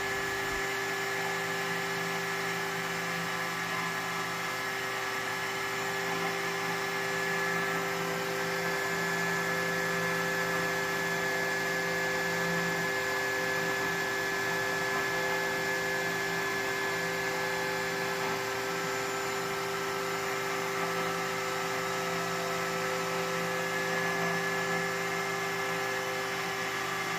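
Vevor S4040 CNC router with its 300-watt spindle running steadily, carving wood. It makes a constant whine of several tones, with a lower hum that comes and goes.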